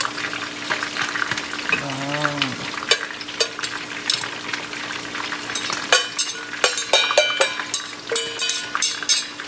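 Fish frying in oil in a skillet, a steady sizzle, with a utensil clicking and scraping against a stainless steel pot as boiled napa cabbage is tipped out into a bowl. The metal clinks come thickest in the last few seconds, some ringing briefly.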